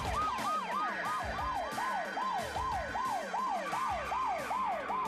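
Police car siren in fast yelp mode, its pitch rising and falling about three times a second. It starts abruptly, with two sirens overlapping at first.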